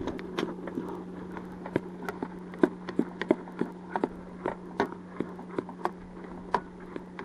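A spoon knocking and scraping against a pot while pearl barley cooks: irregular sharp clicks, about two or three a second, over a steady low hum.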